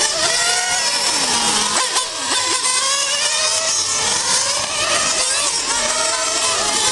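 Several radio-controlled model racing cars' motors whining at high revs together. Their overlapping pitches keep rising and falling as the cars accelerate and brake round the track.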